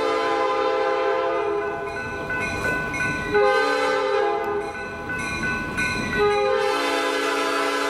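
Reading & Northern GP38-2 diesel locomotive blowing its multi-tone air horn for a road grade crossing as it approaches: a long blast that breaks off about a second and a half in, shorter sounds midway, and a long blast from about six and a half seconds in. Between blasts the rumble of the approaching diesel comes through.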